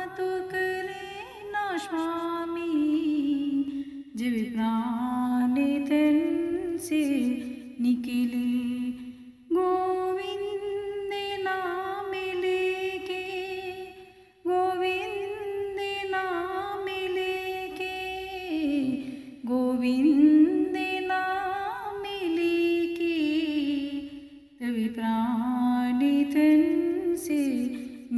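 Background music: a woman's voice singing a slow melody in long phrases, with a short break about every five seconds.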